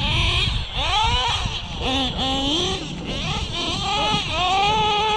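RC car motor whining as the throttle is worked, its pitch swooping up and down in quick bursts, then climbing and holding a long steady high whine near the end.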